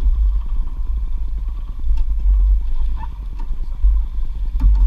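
Outboard motor running, a low, fluctuating rumble mixed with wind buffeting the microphone, with a few light knocks of gear in the boat.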